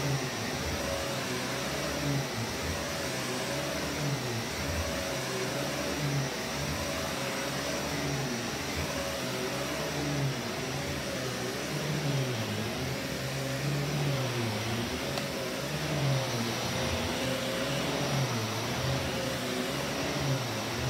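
Vax Commercial VCU-03C bagged upright vacuum cleaner running on carpet. Its motor note wavers up and down about every couple of seconds as the head is pushed back and forth.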